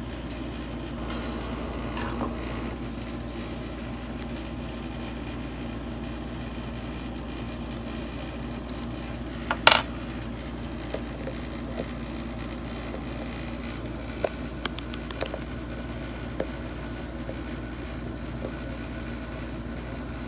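Small metal clicks of steel cam phaser parts and bolts being handled, with one loud, sharp metallic clink about halfway through as a metal piece is set down or dropped. A steady low hum runs underneath.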